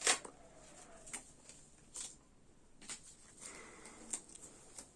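Scattered light taps and clicks in a small room, about one a second, the first the loudest, with a faint brief voice in the middle.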